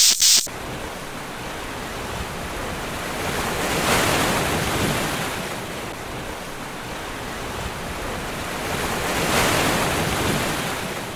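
Waves washing in: a steady rushing wash that swells twice, about four and nine seconds in, after a brief loud hiss at the very start.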